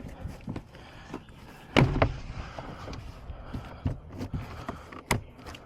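A plastic car door trim panel being pulled off the door, its push-in retaining clips popping loose. A loud clunk about two seconds in, a sharp snap near the end, and smaller clicks and rattles between.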